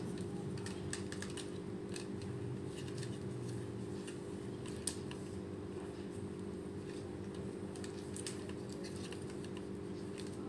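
Scattered light clicks and rustles of hands handling a small plastic toy quadcopter and the wrapped chocolate bar being tied onto it, over a steady low hum. The drone's motors are not running.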